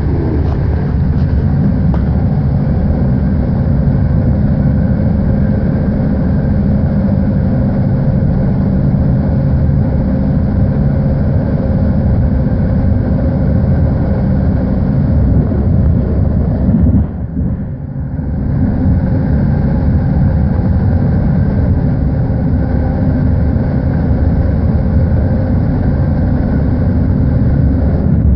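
BART train running at speed, heard from inside the passenger car: a loud steady rumble of wheels on rail, with a faint steady tone above it. The noise dips briefly about two-thirds of the way through, then returns.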